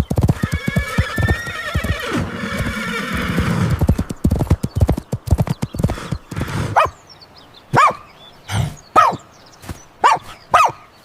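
Horse whinnying over clip-clopping hoofbeats, the neigh wavering in pitch for a few seconds. Near the end come short yelps that fall in pitch, about one a second.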